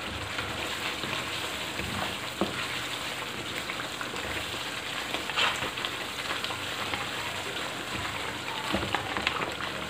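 Creamy chicken handi masala sizzling in a non-stick wok as it cooks down with a little oil just added, stirred with a wooden spatula that knocks and scrapes against the pan a few times.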